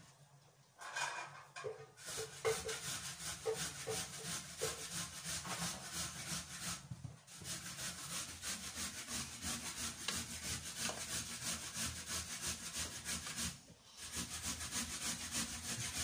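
Rapid, rhythmic scraping strokes, rubbing on a hard surface, with two short pauses, about seven seconds in and again near fourteen seconds.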